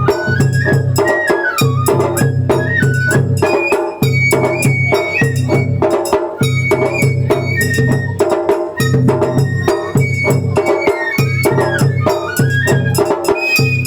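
Japanese festival hayashi music: a high bamboo flute melody that slides between notes, over steady, rapid taiko drum strokes.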